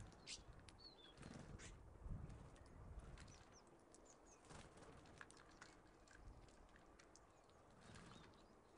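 Faint scattered short, high chirps and calls of small songbirds at a seed feeder, with brief wing flutters and light taps as birds land and take off.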